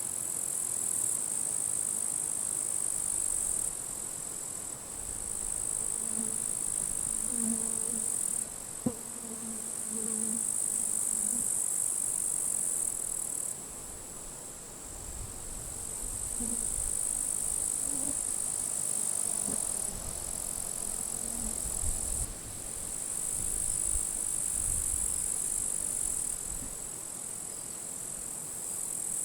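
Grasshoppers stridulating in dry grass: a high-pitched buzzing that starts and stops in bouts of a few seconds. Under it, wind gusts rumble on the microphone, strongest in the middle.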